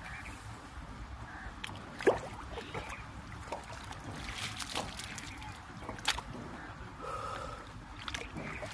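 A long-handled hoe scraping and slapping wet mud in a shallow irrigation ditch, with water trickling and splashing around it. Sharp strikes come now and then, the loudest about two seconds in.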